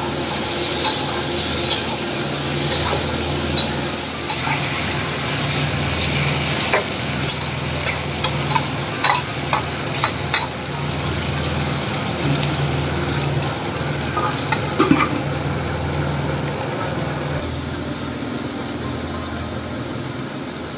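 Duck pieces sizzling as they are stir-fried in a wok over a steady low hum, with a metal spatula scraping and knocking against the pan for roughly the first fifteen seconds.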